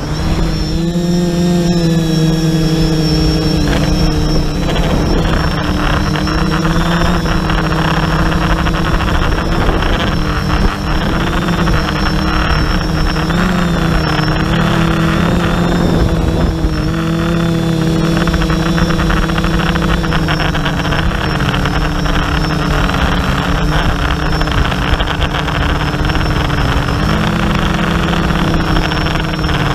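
TBS Discovery quadcopter's four SunnySky X2212 980KV brushless motors spinning APC 10x5.5 propellers in flight, heard from its onboard camera. A steady buzzing hum rises and dips in pitch with throttle changes, with a thin high whine above it and a rush of air noise.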